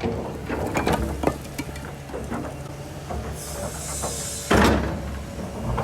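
Heavy construction machinery running with a low steady rumble and scattered knocks and clanks. About three seconds in comes a burst of high hissing lasting about a second, then a single loud clank.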